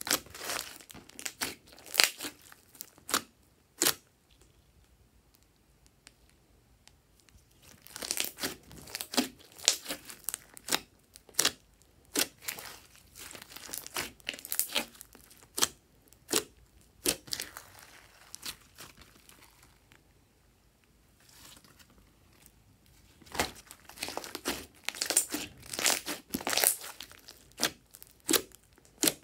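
Glossy slime squeezed, pressed and stretched by hand, giving off sticky clicks, crackles and pops in quick clusters. The clusters are broken by two quiet pauses, one a few seconds in and one about two-thirds of the way through.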